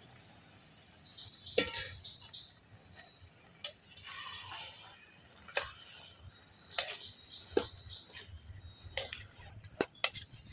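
Small birds chirping in two short runs, over handling sounds as cut vegetables are moved from a pot of water into a steel cooking pot: a stretch of wet rustling, then scattered sharp clicks and knocks, more of them near the end.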